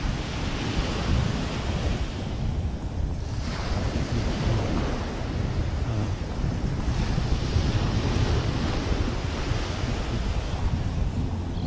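Wind buffeting the microphone with a steady low rumble, over the hiss of surf washing on the beach that swells and fades a few times.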